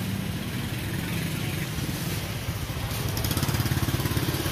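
A small engine running steadily, growing louder with a fast pulsing over the last second and a half.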